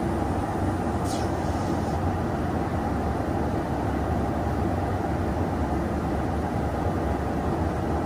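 Steady in-flight cabin noise inside a KC-135 Stratotanker's boom pod: a constant low rumble of engines and rushing air. A brief, faint, high falling whistle sounds about a second in.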